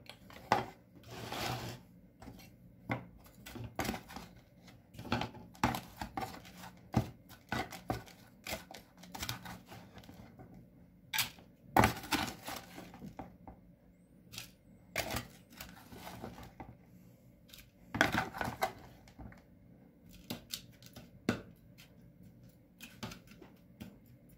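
Small plastic hand rake and trowel scraping, stirring and scooping potting mix in plastic pots, with irregular scrapes, rustles and clicks of plastic tool against plastic pot.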